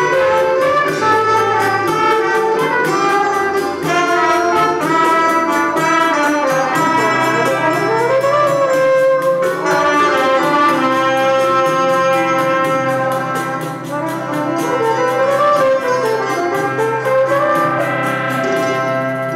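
Choro ensemble playing: trumpets carrying the melody in harmony over acoustic guitar, electric keyboard and pandeiro.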